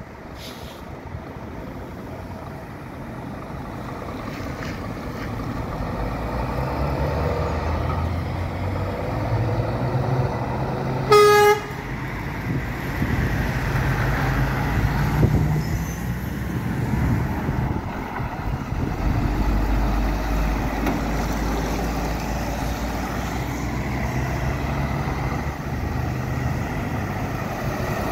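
Heavy truck engine running in street traffic, the low rumble growing louder over the first several seconds and then staying steady. About eleven seconds in, one short horn blast, about half a second long, is the loudest sound.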